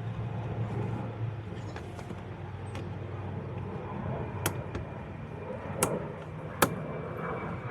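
Three sharp clicks of plastic trim clips snapping into place about halfway through, over a steady low background hum.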